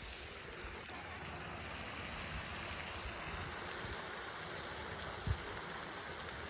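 A steady rushing hiss of outdoor noise, with one brief low thump about five seconds in.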